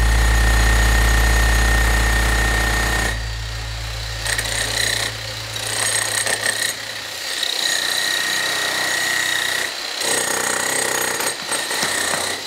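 Handheld demolition hammer chiselling out stone and rubble, running in several bursts with short pauses between.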